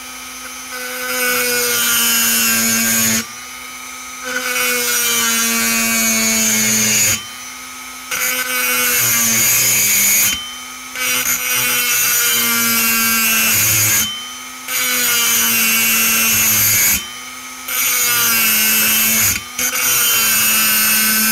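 Handheld rotary pencil grinder with a small bit cutting into the aluminium transfer port of a two-stroke chainsaw cylinder, porting it. It runs as a steady whine in about seven short bursts of two to three seconds, with brief stops between them, its pitch rising briefly as it spins up at each restart.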